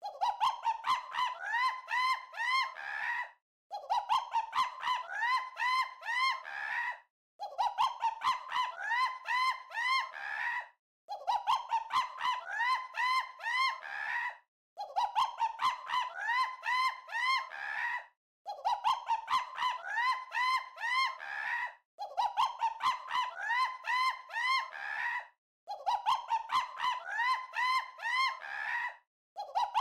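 A looped novelty sound effect of quick rising squeaky honks, several a second. Each burst lasts about three seconds and is repeated identically after a short break, eight times over.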